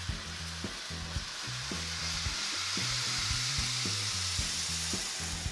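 N-gauge model train, a Kintetsu Shimakaze, running along the layout track: a steady rolling hiss from its wheels and motor that swells about halfway through as it passes close by, then eases off.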